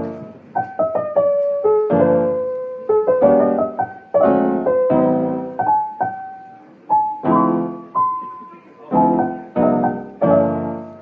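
Piano music: slow struck chords and single melody notes, each left to ring and fade before the next.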